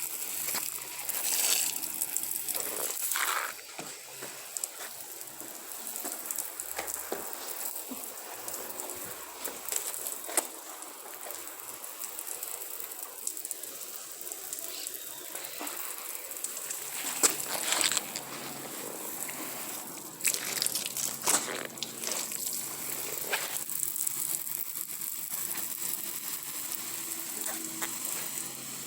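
Heavy rain from a severe thunderstorm falling steadily, a dense hiss with scattered sharp ticks and knocks.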